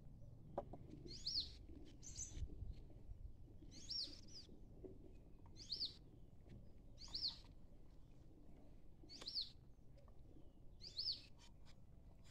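A bird calling the same short, sharp note about six times, roughly every two seconds, each call dropping in pitch.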